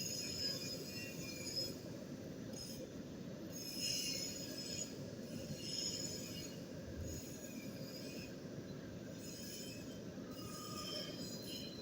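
Metal being cut on a machine tool: high-pitched cutting squeals come and go over a steady low machine hum.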